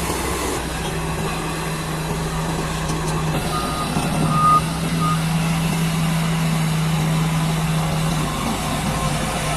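Crawler bulldozer's diesel engine running steadily with a low hum, and a reversing alarm beeping three short times near the middle.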